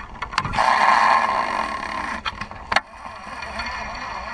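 Fishing reel being cranked right at the microphone, a steady whirring of its gears, loudest in the first couple of seconds, with a few sharp clicks, one about two and a half seconds in.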